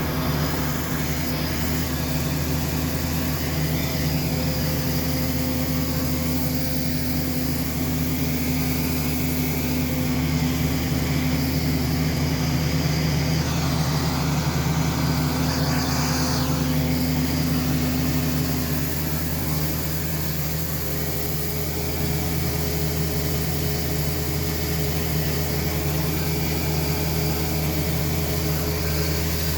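Combine harvester running steadily in the field, its engine and threshing machinery giving an even drone with a constant pitched hum.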